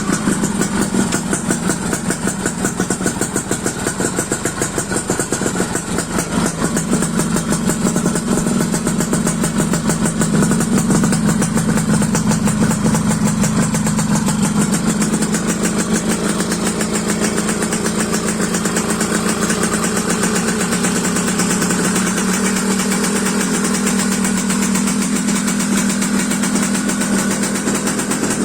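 Yamaha RXZ's 135 cc two-stroke single-cylinder engine idling steadily while it warms up just after being started, with a rapid, even two-stroke firing beat that briefly rises a little partway through.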